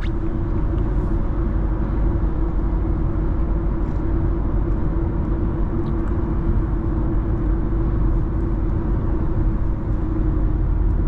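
Infiniti Q50 driving at highway speed: steady engine and tyre-on-road rumble with an even hum, no revving or shifts.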